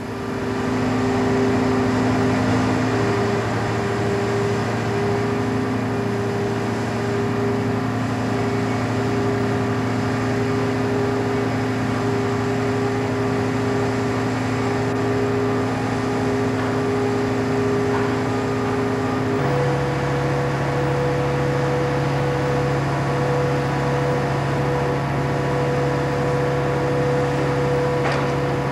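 Liebherr LTM 1800 mobile crane's diesel engine running steadily, a low hum with a whine over it, fading in at the start. About two-thirds of the way through, the tones change abruptly to a different steady pitch.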